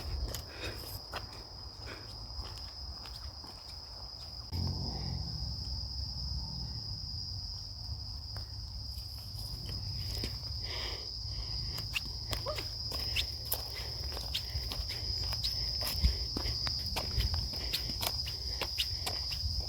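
Footsteps crunching along a forest path, with insects chirring in a steady high drone throughout.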